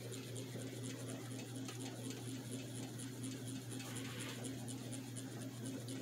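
Cheap mid-2000s ceiling fan running steadily: a constant motor hum with a faint, regular ticking several times a second. Not particularly quiet.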